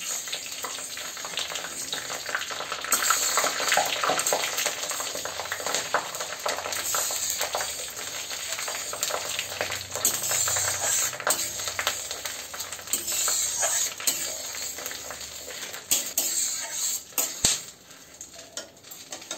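Whole spices sizzling in hot mustard oil in a kadai, stirred with a steel spatula that scrapes and clinks against the pan, with a few louder clinks near the end.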